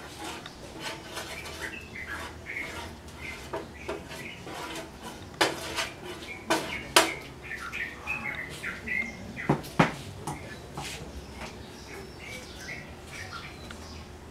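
Kitchen clatter of utensils and containers being handled and set down: scattered clicks and knocks, the loudest few clunks coming between about five and ten seconds in. Faint short high chirps come and go throughout.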